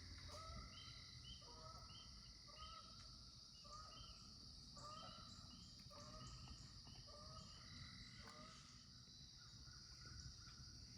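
Faint outdoor ambience: a steady high-pitched insect drone, with a run of short rising animal calls repeated about every two-thirds of a second that stop near the end.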